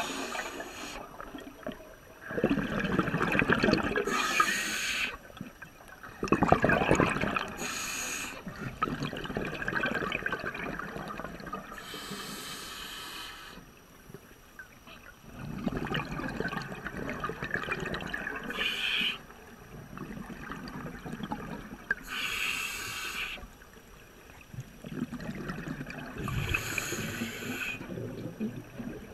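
Scuba divers' exhaled breath bubbling from their regulators underwater, in bursts that recur every four to six seconds with quieter gaps between breaths.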